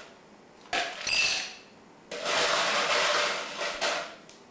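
Ice cubes being scooped and poured into a metal cocktail shaker. A clink with a brief metallic ring comes about a second in, then a couple of seconds of ice clattering into the tin, and a knock near the end.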